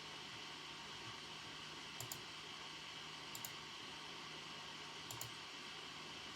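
Computer keyboard keys pressed sparsely, three quick pairs of soft clicks about two, three and a half and five seconds in, over a steady faint hiss and low hum.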